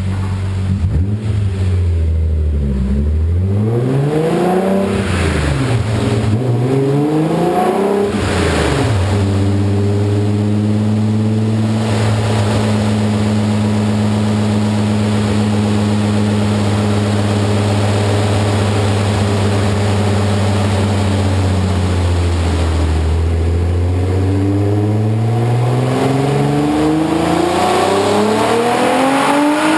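Turbocharged BMW E46 M3 S54 inline-six running on a dyno in its high-boost race-gas mode. The engine revs up and down several times, holds a steady speed for about ten seconds, drops back, then climbs steadily in revs near the end.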